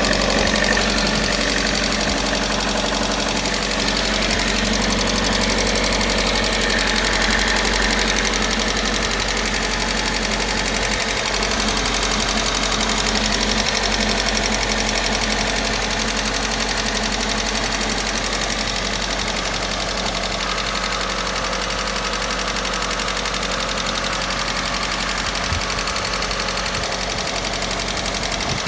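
Car engine idling with a steady knocking from its hydraulic valve lifters: a lifter knock that the owner says is there whether the engine is cold or hot.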